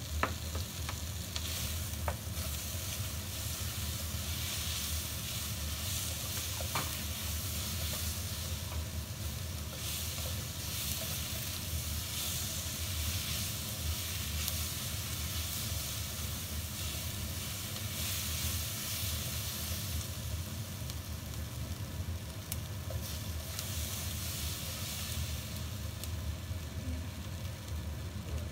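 Chicken, onion and bell pepper sizzling in a hot wok while a slotted spatula stirs and tosses them, with a few sharp clicks of the spatula against the pan, over a steady low rumble.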